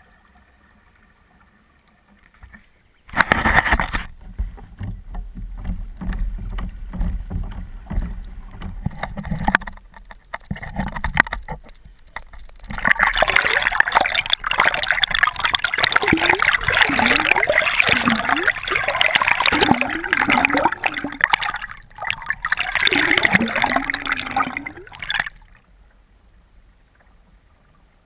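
Water rushing, splashing and gurgling over a kayak-mounted camera as it goes under the water. It starts with a sudden splash about three seconds in, is loudest in the second half, and cuts off suddenly near the end.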